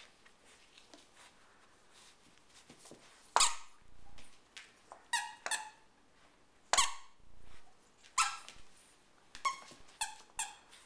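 Plush rabbit toy's squeaker squeaking as a puppy chews it: about eight short, high squeaks at irregular intervals, two of them louder than the rest.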